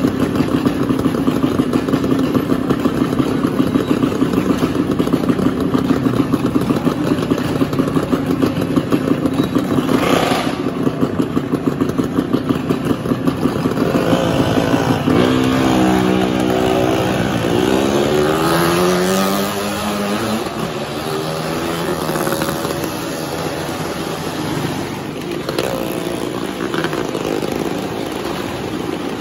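Motorcycle engines running inside the wooden drum of a well-of-death motordrome. They idle with a fast, even beat, then rev up and down several times about halfway through.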